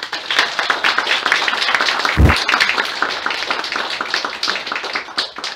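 Audience applauding, a dense patter of many hands clapping that thins out near the end. A single low thump comes about two seconds in.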